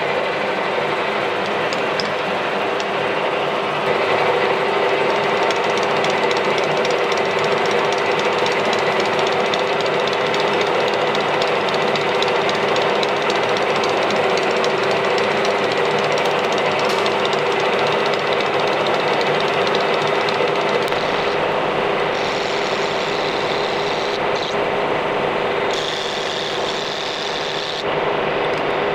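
Metal lathe running with its four-jaw chuck spinning: a steady hum and gear whine, with a carbide insert tool taking light turning passes on bronze stock.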